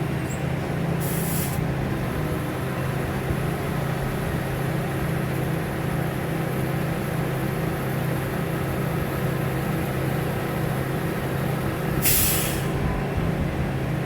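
Heavy lifting crane's diesel engine running steadily under load as it holds a trailer aloft, with two short bursts of air hiss, about a second in and again near the end.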